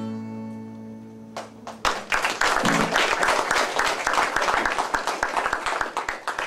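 Last acoustic guitar chord ringing out and fading, then an audience applauding, starting about two seconds in.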